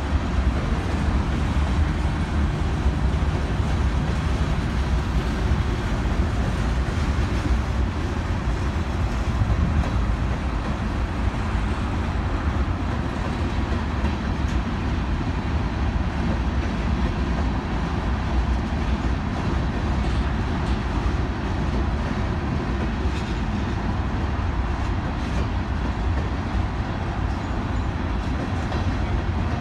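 Freight train of covered hopper cars rolling past: a steady rumble of steel wheels on the rails.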